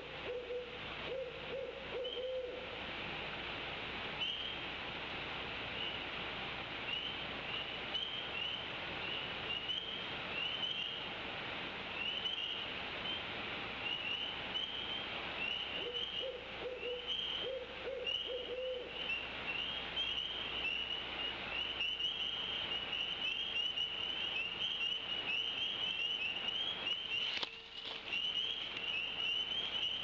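An owl hooting: two series of wavering hoots, one at the start and one about sixteen seconds in, over a steady high chirping chorus. Near the end there is a brief sharp rush as an adult bald eagle flaps its wings in a warning display at the nest.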